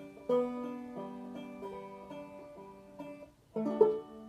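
Banjo played solo: a run of picked, ringing notes, a brief pause, then a loud chord about three and a half seconds in that is left to ring out as the song's closing chord.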